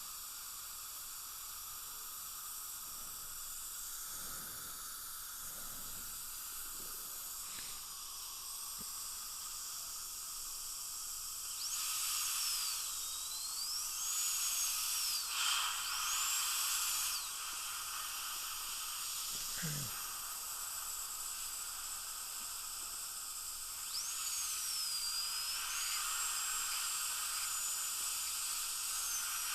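High-speed dental handpiece (drill) whining as it cuts into the porcelain of an implant crown to gain access to a loose abutment screw. Its pitch dips and recovers under load, in two runs: one about 12 s in lasting some five seconds, and another starting about 24 s in. A steady hiss continues underneath.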